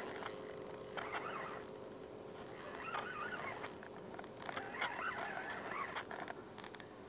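Birds calling in short, wavering phrases, several times: about a second in, around three seconds, and again from about four and a half to six seconds.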